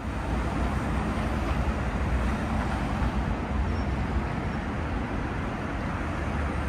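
Steady city street traffic noise, a constant rumble of passing road vehicles that fades in at the start.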